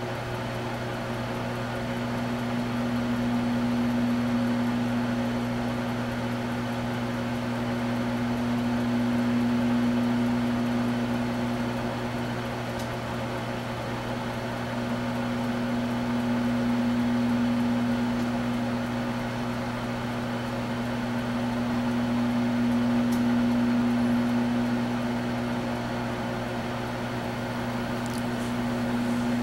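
Microwave oven running: a steady hum that swells and fades slowly about every six or seven seconds.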